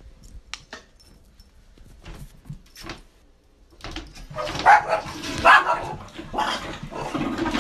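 Small dog barking: a string of short, sharp barks about once a second from about four seconds in, after a few light knocks.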